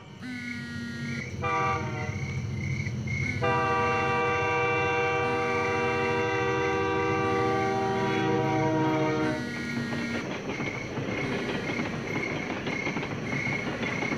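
Train horn blowing several blasts of a multi-note chord, the longest held about six seconds, followed by the rumble of the train running past. A high chirp repeats steadily underneath.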